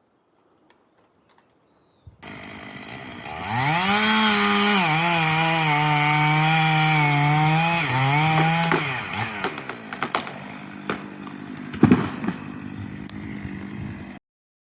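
Chainsaw starting up about two seconds in, revving to full throttle and cutting for about five seconds, its pitch dipping slightly under load. It then drops back to a lower run, with a few sharp knocks near the end, and the sound cuts off abruptly.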